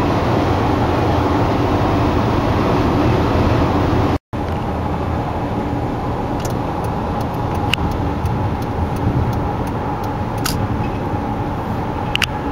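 Riding lawn mower engines running steadily. The sound cuts out for an instant about four seconds in, then another mower engine runs on, with a few sharp ticks in the second half.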